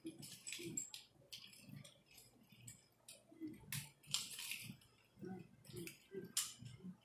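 Martial-arts sticks swung fast through the air, making an irregular run of short swishes, several a second, the sharpest about four seconds in and again near the end, with soft low thumps in between.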